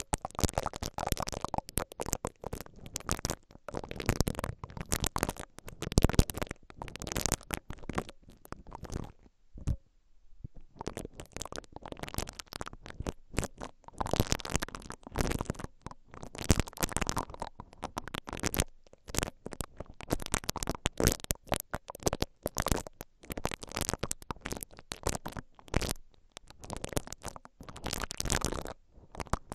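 A silicone-bristle brush ear pick rubbed and twisted right in the mesh grille of a stereo recorder's microphone capsule, making close, crackly scratching strokes. It stops briefly about ten seconds in, and partway through it moves from one capsule to the other.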